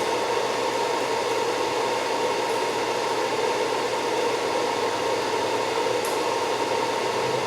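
Cooling fans of an amplifier dyno test bench whirring steadily, with a faint high hum in the whir, while the amplifier is run into the dyno's load.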